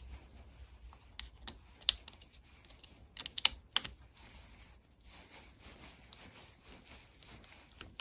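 Light plastic and metal clicks and taps from a Quad Lock phone-mount bracket being handled and taken off its handlebar mount. There are a few single clicks, then a quick run of several about three seconds in.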